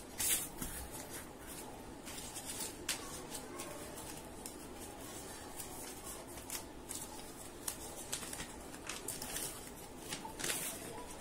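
White paper rustling and crackling as it is folded over the edges of a cardboard sheet and pressed flat by hand, with scattered short rustles and light taps.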